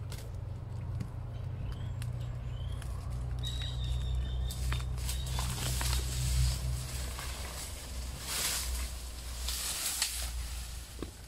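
Outdoor ambience: a steady low rumble with a few scattered knocks, some short high chirps and a thin high tone near the middle, and louder rustling-like noise near the end.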